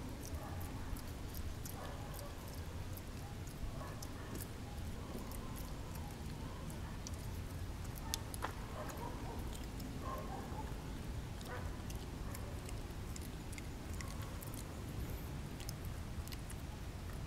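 Outdoor ambience: a steady low rumble with scattered faint clicks and ticks, and a few faint short sounds in between.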